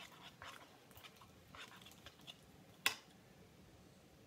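Faint sticky squishing and small clicks of slime being stirred in a bowl as it sets, with one sharp click about three seconds in.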